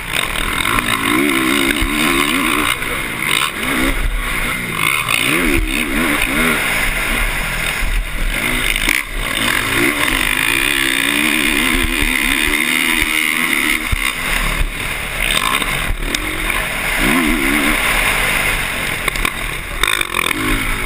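Motocross dirt bike engine heard up close from onboard, revving up and falling back again and again as the throttle opens and closes, over a steady rushing noise.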